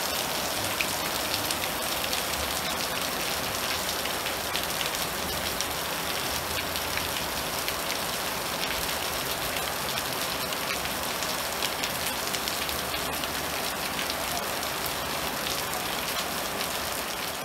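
Steady rain falling on trees and foliage, with individual drops landing close by as many small sharp ticks.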